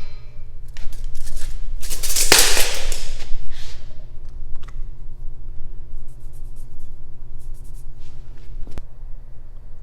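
Handling noises from bent steel pipe being set in place and checked: two stretches of scraping and rustling in the first few seconds, a sharp click among them and another near the end, over a steady low shop hum.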